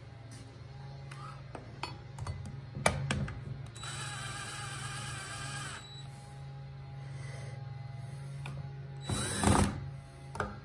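DeWalt cordless drill driving a screw into the bandsaw table plate. The motor whines steadily for about two seconds, after a few clicks and taps of the bit on the screw. A second short, louder burst comes near the end.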